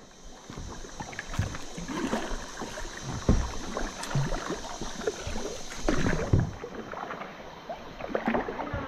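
Paddling a TCamp SF-3001 kayak on a small stream: an irregular run of paddle splashes and knocks against the hull, under a steady high hiss that fades out about two-thirds of the way through.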